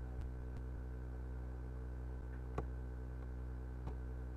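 Steady electrical mains hum in the recording, with a couple of faint clicks about two and a half and four seconds in.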